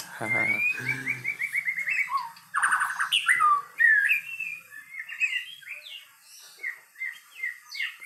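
White-rumped shama (murai batu) singing a fast, varied string of clear whistled notes and rising and falling slurs, with a burst of rapid buzzy chattering about two and a half seconds in. The song grows quieter in the second half.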